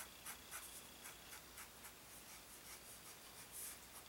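Steel dip pen nib scratching across paper in short, quick hatching strokes, about three a second at first, then sparser.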